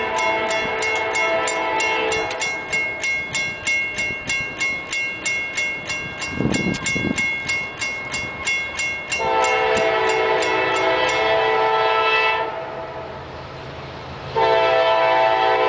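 Railroad crossing bell dinging in rapid, even strokes while an approaching CSX locomotive's horn sounds for the crossing: one blast ending about two seconds in, a long blast from about nine to twelve seconds in, and another starting near the end. The bell stops about eleven seconds in.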